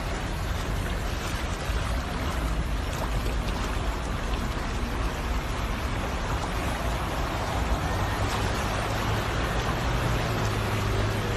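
Steady rushing noise of storm floodwater and wind, with a low rumble of wind on the microphone; a low hum comes in near the end.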